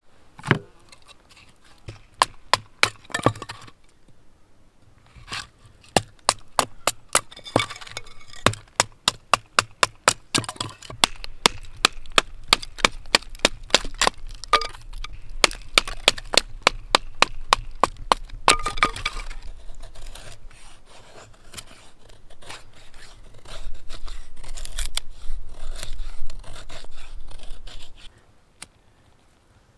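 Wood being split into kindling by hand: a long run of sharp wooden knocks and cracks, about two or three a second, giving way after about twenty seconds to a denser, rougher stretch of cracking and scraping that stops a couple of seconds before the end.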